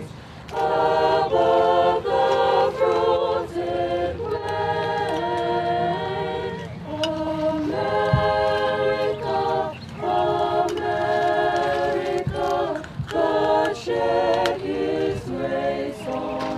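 Small choir singing a cappella, unaccompanied voices in chords that are held and then move to new chords every second or so, beginning about half a second in.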